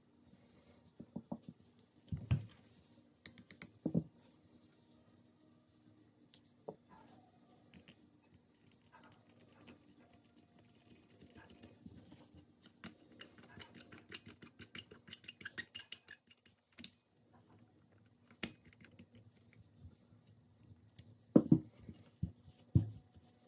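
Hands handling a Yamaha Grizzly 660 carburetor and threading its brass fuel bowl drain screw into the bowl by hand: small metal clicks, ticks and scrapes, with a few louder knocks as the carburetor body is turned and set down, two of them near the end.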